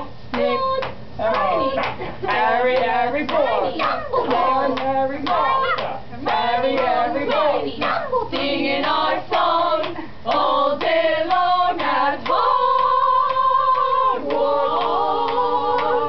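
A small group of young voices singing an a cappella chant in overlapping parts, with sharp clicks between the sung phrases and a long held note about three-quarters of the way through.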